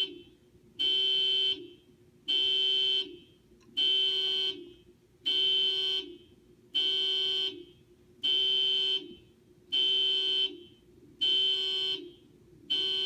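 Car alarm sounding the car's horn in a steady rhythm, one honk about every second and a half. Each honk lasts about three-quarters of a second and sags slightly in pitch as it ends.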